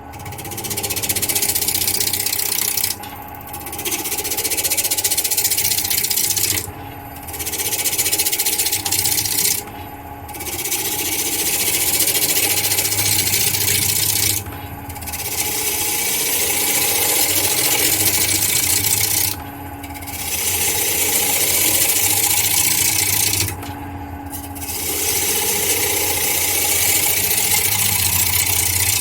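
A turning tool cutting a spinning glued-up hemlock and black walnut blank on a wood lathe at about 760 RPM: a steady hiss of shaving in passes of a few seconds each, broken by short pauses about every three to five seconds where only the lathe's hum remains. The blank was mounted square and is being roughed down to round.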